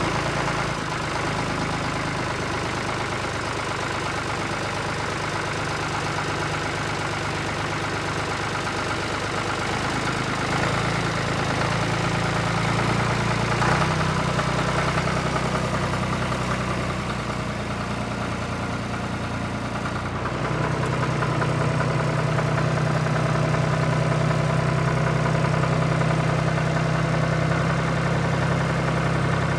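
Farm machinery engine running steadily, a tractor or potato harvester at work, with a low hum that shifts in pitch and level a couple of times.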